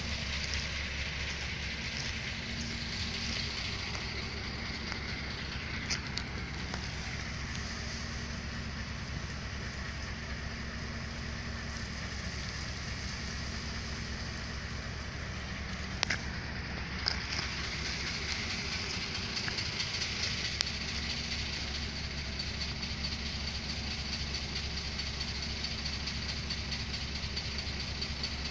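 Steady low rumble of a train at the station, with no rise or fall, and a few light clicks along the way.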